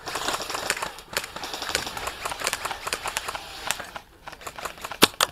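Airsoft guns firing: irregular clicks and snaps over a background hiss, then two sharp, loud shots close together near the end.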